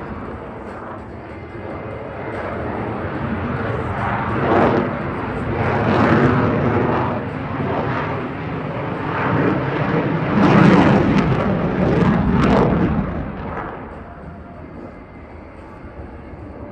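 F-22 Raptor's twin Pratt & Whitney F119 turbofans in a fighter jet flypast. The jet noise rises and falls several times, is loudest about ten to thirteen seconds in, then fades.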